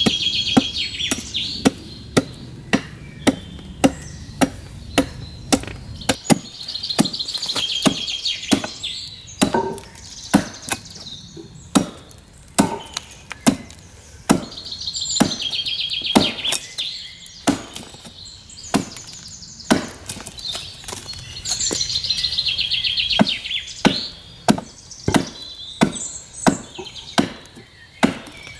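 A hand adze chopping into a wooden chair-seat blank, striking in a steady run a little more than once a second, each stroke a sharp knock as it takes off a chip. A bird sings short high trills in the background now and then.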